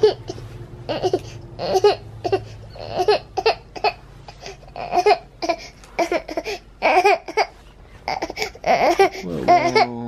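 A baby vocalizing in short, rapid bursts about twice a second, fussing on waking. A low steady hum lies under the first half.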